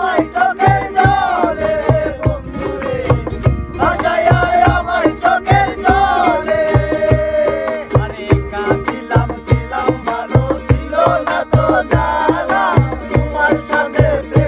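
Live acoustic Bangla baul folk song: several men singing together to a strummed ukulele, with a cajon (box drum) beating a steady rhythm of low thumps.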